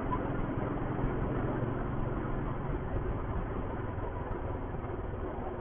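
Royal Enfield Thunderbird's single-cylinder engine running at a steady cruise under way, with road noise; the engine note eases a little about halfway through.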